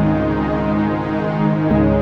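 Calm new-age background music with sustained, layered tones, shifting to a new chord near the end.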